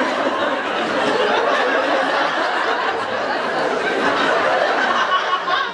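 Large audience laughing and chattering, a dense steady crowd noise with no single voice standing out.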